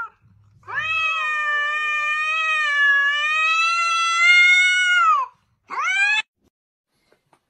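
Cat yowling at another cat in a stand-off, a hostile warning: one long drawn-out yowl of about four and a half seconds that wavers slightly in pitch, then a short rising cry near the end.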